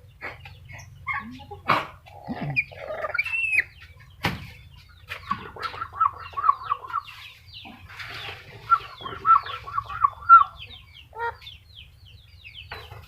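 Black-capped lory calling: a string of short, chattering squawks, with two runs of rapid repeated notes at about five a second. There is a single sharp knock about four seconds in.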